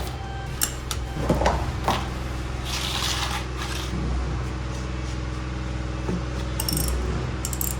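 KTM Duke 390's single-cylinder engine idling steadily, with a few metallic clicks and scrapes over it.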